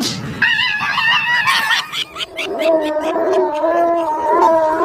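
Dog howling in long, wavering notes: a higher howl first, then a lower one from about two and a half seconds in.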